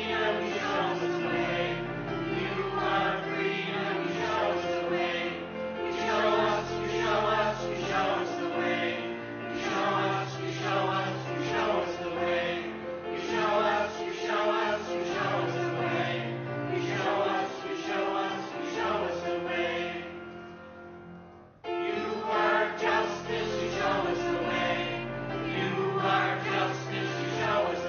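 Church choir singing a traditional South African song, voices over long held low notes. About two-thirds of the way through, the singing fades out, then starts again abruptly.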